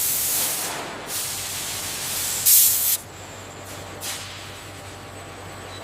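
Steady hissing noise, with a louder surge about two and a half seconds in, then settling to a quieter hiss.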